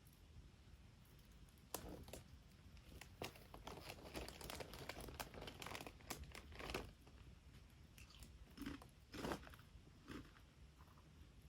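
Faint, irregular crunching and crackling of dry kindling. It starts about two seconds in and thins out near the end.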